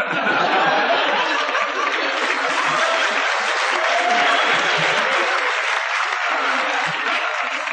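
Audience laughing and applauding after a joke's punchline, a steady wash of clapping and laughter.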